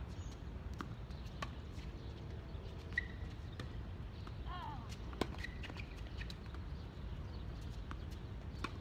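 Tennis ball pops from racket strings and court bounces at irregular intervals, the sharpest about three and five seconds in and again near the end. A steady low outdoor rumble runs underneath, and a brief squeak sounds midway.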